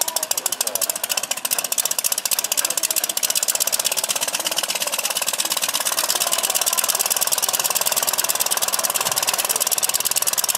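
Replica three-cylinder Anzani engine of a large scale Blériot XI model running at idle on the ground, with a fast, even firing beat.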